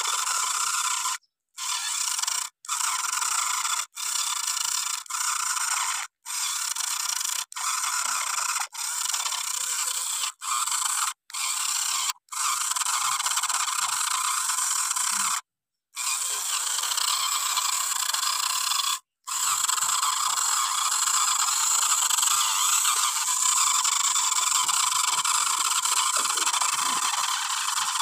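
The small electric motor and gearbox of a toy Kubota RC tractor whine at a high pitch while straining to haul a loaded sugarcane trolley that is stuck. The sound cuts out and restarts about a dozen times early on, then runs steadily.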